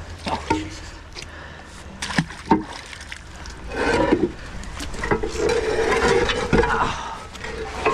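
Heavy rusty steel slab, an old piece of canal siding, being dragged out of the water over a wet concrete edge: a few knocks, then about four seconds of loud scraping and grinding of metal on concrete.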